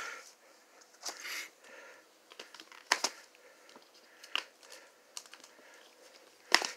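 LP record jackets, some in plastic shrink wrap or sleeves, being flipped through and handled: a few sharp taps as the cardboard edges knock together, with short rustles of sliding plastic.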